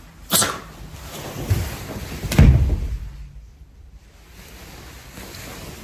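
A sharp knock just after the start, then a heavier, low thump about two and a half seconds in, like a door or cupboard being knocked or shut.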